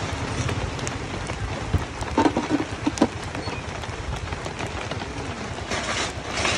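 Yellow pancake batter sizzling in a hot aluminium wok over a gas burner, a steady crackling hiss, with a few metal knocks from the lid being set on the wok about two to three seconds in.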